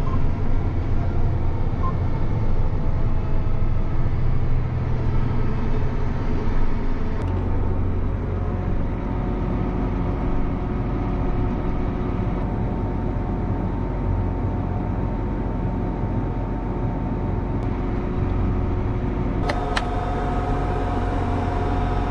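Tractor engine running steadily. The sound changes abruptly about seven seconds in and again near the end.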